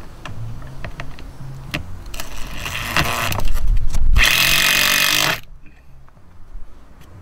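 Cordless drill-driver driving a screw through a plastic gutter bracket into a timber fascia board. After a few light clicks, it starts about two seconds in, runs louder for a couple of seconds and stops suddenly about five and a half seconds in.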